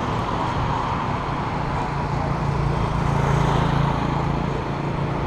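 Street traffic heard from a moving bicycle: motorbike and car engines running over a steady rush of road noise. A motorbike engine's hum grows louder from about two seconds in and eases off after four as it passes.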